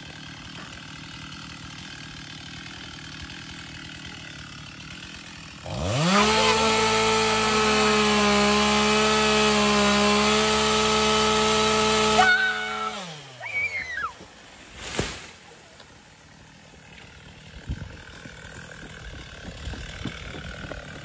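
Gas-powered two-stroke chainsaw idling low, then throttled up about six seconds in. It rises quickly to a high, steady whine, holds there for about six seconds, and falls back down to idle.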